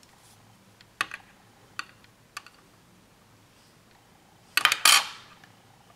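Small metal scissors trimming a nail art decal at the nail tip: a few light clicks, then a quick pair of sharp snips about four and a half seconds in, the loudest sound.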